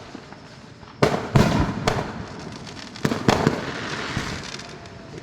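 Aerial fireworks bursting close by: a group of loud booms about a second in, another group about three seconds in, with crackling between the bursts.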